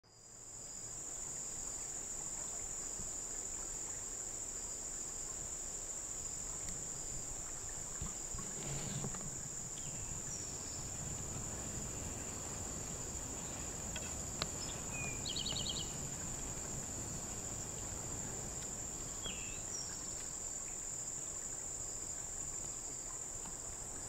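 A steady, unbroken high-pitched insect trill runs on, with a few faint bird chirps over it.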